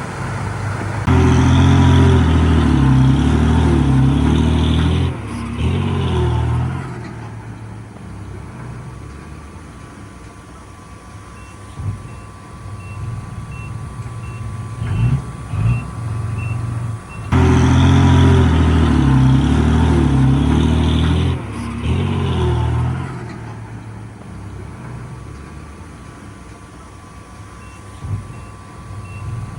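A heavy diesel engine revs hard twice, each time for about five seconds, and runs quieter in between. In the quieter stretches a vehicle's reversing alarm beeps steadily.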